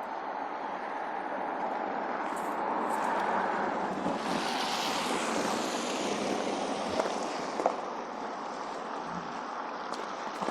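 Street traffic on snowy roads: a car passes with tyre hiss swelling and fading about halfway through, over a steady traffic rumble, with a couple of small knocks after it.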